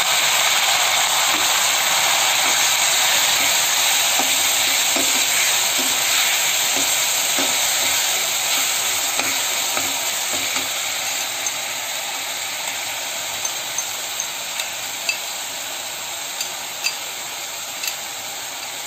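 Chopped onions sizzling and frying in hot mustard oil in a kadhai, loud at first and slowly dying down as the oil cools around them. A metal spatula stirs them, with light clicks against the pan from about halfway on.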